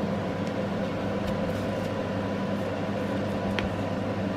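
Steady background hum, with faint clicks and rustles of a strip of plastic paint pots being lifted from a foam tray and tissue paper being moved; one sharper click about three and a half seconds in.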